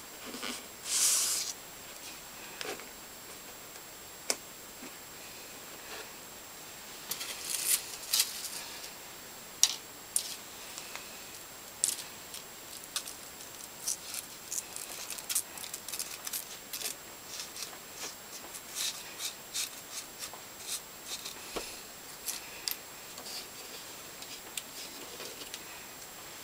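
Close handling of a fine metal chain and a paper card: scattered small sharp clicks and light rustles, with a louder rustle about a second in.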